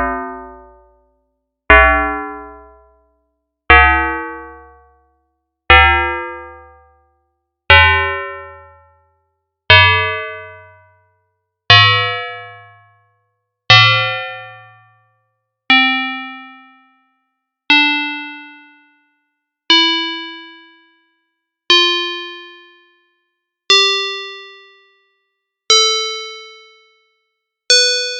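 Synthesized FM bell tones from a Csound instrument: one struck note every two seconds, each with a sharp attack and a quick decay to silence within about a second and a half. The notes step through a sequence that climbs higher in pitch toward the end.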